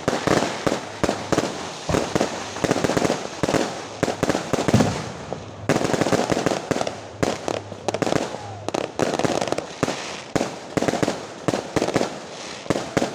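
Many fireworks and firecrackers going off at once: a rapid, dense run of bangs and crackling from aerial shells bursting overhead and fireworks at ground level.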